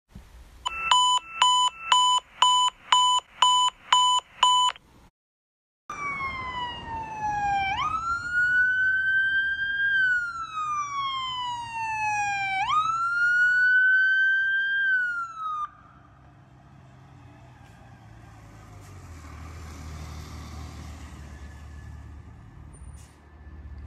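Eight short electronic beeps, about two a second, then after a brief gap a fire engine's electronic siren wailing, its pitch sliding down and jumping back up twice before it cuts off suddenly. The truck's engine and tyres follow as a low rumble that swells as it passes.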